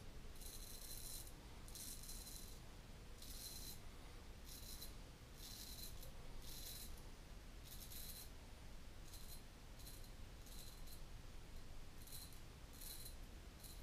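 Portland Razor Co. Sprite straight razor scraping stubble off a lathered cheek in short strokes, about one a second, some coming in quick pairs; each stroke is a brief, high, dry scrape.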